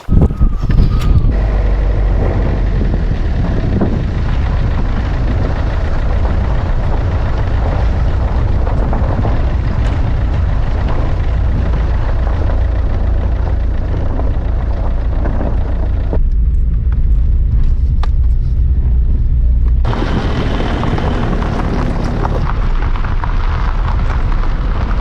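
Strong storm wind blowing hard and buffeting the microphone, a loud steady rumble with a hissing noise above it. About two-thirds of the way through, the hiss drops away for a few seconds while the rumble carries on.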